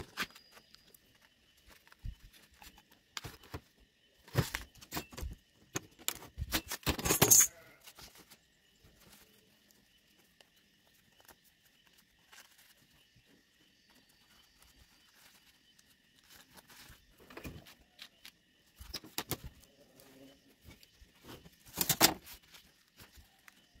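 Paper rustling and crinkling as a sheet of white paper is folded and creased by gloved hands, with scattered taps on a steel table. The loudest rustles come about seven seconds in and again near the end.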